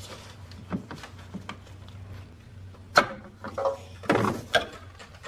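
Hands working a plastic wiring-harness connector clip on a fan control module: scattered small clicks and knocks of plastic, with one sharp click about three seconds in and a short run of knocks about a second later.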